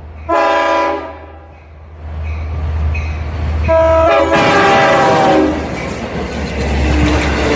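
Long Island Rail Road diesel locomotive sounding its horn as it approaches a grade crossing: a short blast just under a second in, then a longer blast near the middle. Engine and wheel rumble build underneath as the bi-level coaches pass close by.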